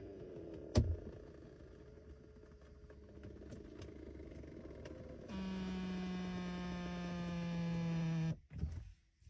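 A car's electric power seat motor whirring steadily for about three seconds, its pitch sagging slightly under load, then stopping suddenly as the seat is moved into position. A sharp click comes about a second in.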